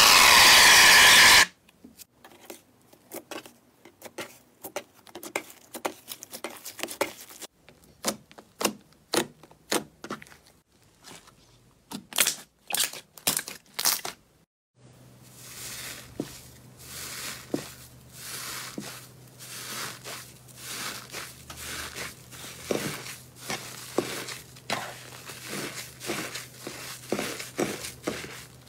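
An aerosol can hisses loudly as it sprays foam onto slime, stopping about a second and a half in. Hands then squish slime with sharp sticky pops and clicks. From about halfway, hands knead a fluffy, crumbly slime with dense crackling and crinkling over a low steady hum.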